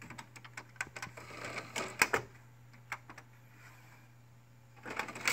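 Desktop computer's CD-ROM drive tray and plastic front door clicking and rattling as the tray moves, with a sharp click about two seconds in and another short burst of clicking near the end. A steady low hum runs underneath.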